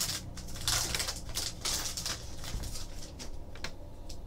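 A trading card pack being opened by hand: the wrapper crinkling and the cards rustling, a string of short irregular crackles.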